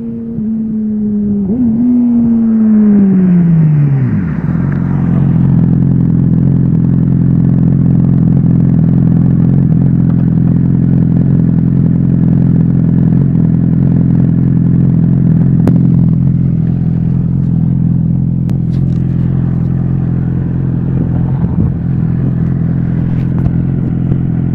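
Motorcycle engine running at steady revs, with a quick blip about a second and a half in. Its pitch then falls over about two seconds as the revs drop, and it settles into a steady idle about four seconds in.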